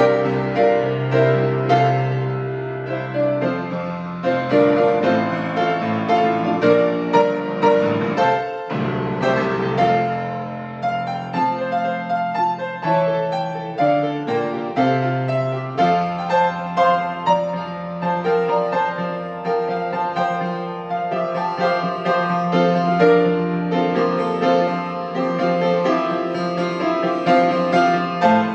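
Solo piano playing a hymn arrangement, full chords over a sustained bass line, with a brief pause between phrases about eight seconds in.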